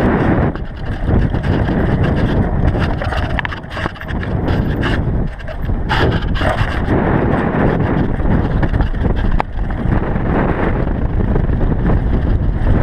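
Wind buffeting the microphone and tyres rumbling over a dirt trail during a fast descent on a GT DHi downhill mountain bike. A cluster of sharp clacks and rattles from the bike comes through about halfway in.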